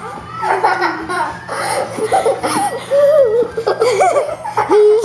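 Two young girls laughing and squealing loudly, in high gliding voices, ending in a held high squeal.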